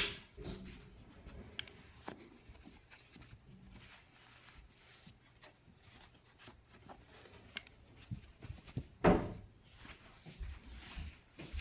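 Light scattered knocks and rustling, with one sharp thump about nine seconds in, from cats moving about in and around a box and basket.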